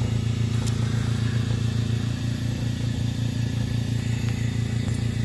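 Steady low mechanical hum with a fast, even flutter, from the hyperbaric chamber's running air or ventilation machinery.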